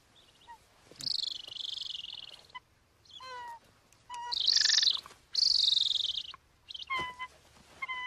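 Trapped golden eagle calling: several high, harsh screeching calls, the loudest in the middle, alternating with short, clear yelping whistles.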